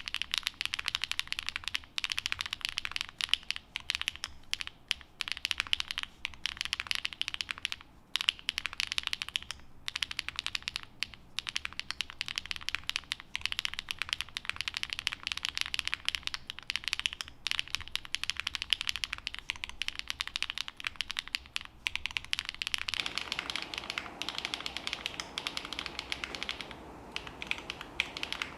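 Continuous fast typing on a Qwertykeys NEO80 custom mechanical keyboard fitted with HMX Sunset Gleam (Duck Duck) linear switches, a POM plate and GMK keycaps, giving dense, low-pitched keystroke clacks. About 23 seconds in, the recording switches to a camera microphone, and more room noise comes in under the keystrokes.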